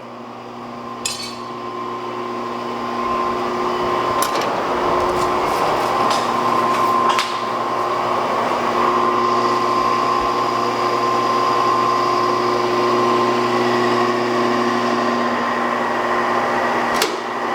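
Steady electric motor hum from forge-shop machinery, building up over the first few seconds and then holding even, with a few light metallic clinks.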